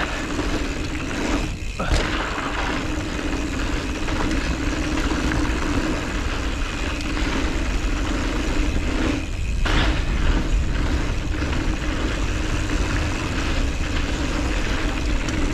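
Mountain bike rolling fast down a dirt trail: tyre noise and rattle with a steady hum, wind buffeting the camera's microphone, and a couple of sharp knocks from bumps.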